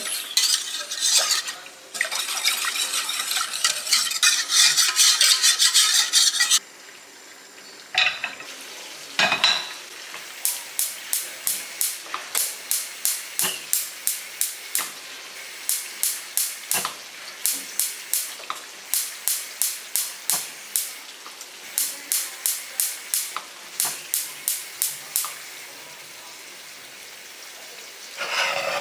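Wire whisk beating a thin milk and egg-yolk custard mixture in a stainless steel pot: rapid, continuous whisking for about the first six seconds. After a short lull with two knocks, steadier strokes tick against the pot's side about three times a second in runs, stopping a few seconds before the end.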